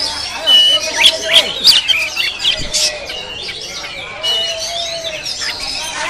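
Oriental magpie-robin (kacer) singing at close range: a quick run of sharp whistles, chirps and harsh squawky notes, loudest in the first two seconds.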